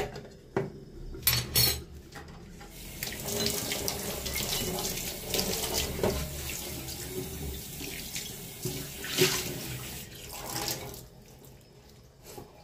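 A steel steamer insert and glass lid clink a few times as they are set onto a cooking pot. Then water runs from a tap for several seconds, steady, and stops shortly before the end.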